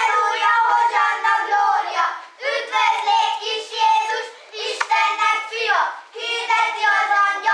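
A group of young children singing together in short phrases of held notes, with one sharp knock about five seconds in.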